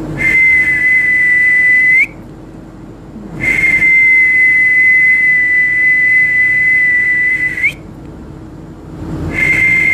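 A man whistling three long, steady, high-pitched notes, each held for a couple of seconds or more and flicking up in pitch just as it ends.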